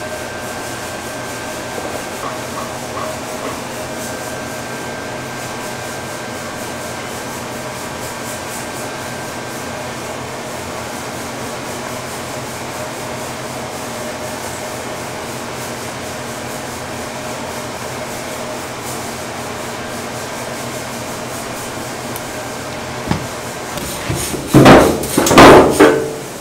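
Steady background hum with faint steady tones. About a second and a half before the end, loud irregular clatter and thuds as raw ducks are tipped from a plastic crate into a stainless steel sink.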